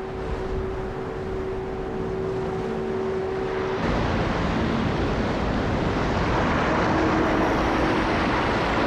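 A steady engine-like drone over wind noise. About four seconds in it gives way to a louder, building rush of wind and heavy sea, with a lower engine hum running underneath.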